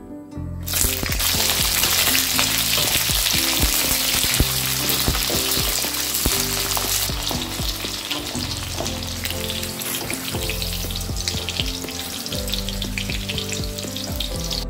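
Green flat beans dropped into hot oil in a wok, setting off a loud sizzle about a second in that eases a little after halfway, as they are stirred with a wooden spatula.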